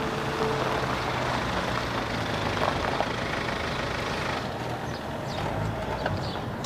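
BMW X1 SUV driving up with engine and tyre noise, which eases off after about four seconds as it slows to a stop.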